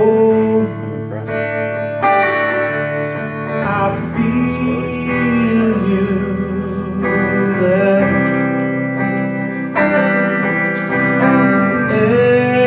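Live acoustic band music: guitars playing while a man sings long, drawn-out notes.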